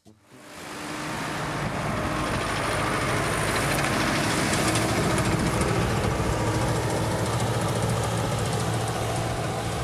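Sonalika 110 HP 4WD tractor's diesel engine running steadily under load while it pulls a four-bottom moldboard plough through dry soil. The sound fades in during the first second.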